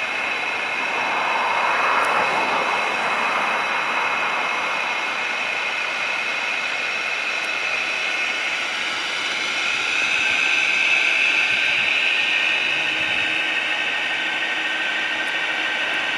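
Acco rear-loader garbage truck running at slow speed: diesel engine with a steady high-pitched whine over it, growing a little louder about ten seconds in.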